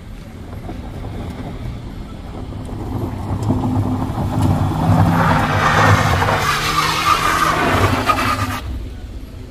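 A Toyota Calya MPV's engine revving hard under load as it climbs a loose dirt ramp, its tyres spinning and scrabbling on the gravel with a gritty hiss. The sound builds from about four seconds in, is loudest as the car passes close, and stops abruptly near the end.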